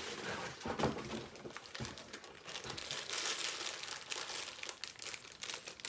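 Plastic bags of LEGO pieces crinkling and crackling as they are handled and sorted, most densely in the middle.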